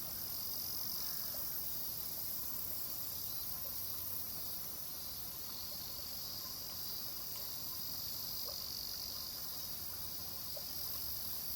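A steady chorus of singing insects: an unbroken high-pitched chirring.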